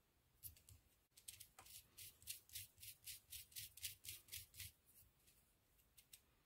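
LEGO Technic worm gears and spur gears turned by a hand crank, the plastic parts clicking faintly and evenly at about five clicks a second for a few seconds, then a few stray clicks near the end.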